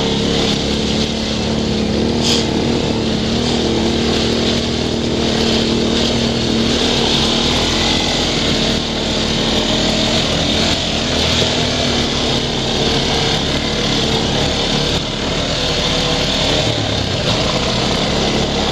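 ATV engine, a four-stroke single, running at a fairly steady trail speed under a continuous hiss of wind and tyre noise. There is one sharp click about two seconds in.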